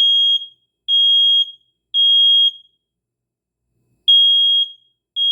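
Smoke alarm sounding its test alarm: loud, high-pitched beeps about half a second each in the temporal-three evacuation pattern, three beeps, a pause of about a second and a half, then the next round of beeps starting near the end.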